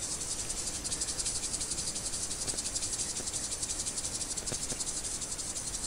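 Insect chirring: a steady, fast-pulsing high buzz, with a couple of faint ticks partway through.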